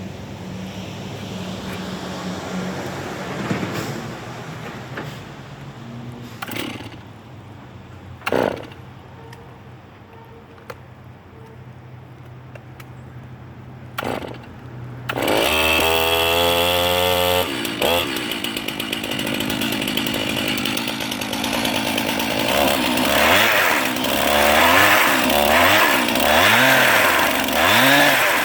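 A Stihl MS 362 two-stroke chainsaw engine driving a Bristol earth auger. It starts about halfway through after a few sharp knocks, revs up, and runs loudly to the end. Its speed rises and falls again and again as the auger digs and loads the engine.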